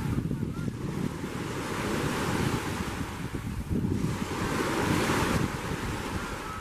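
Small lake waves washing up and breaking on a sandy beach, swelling and easing every few seconds, with wind buffeting the microphone.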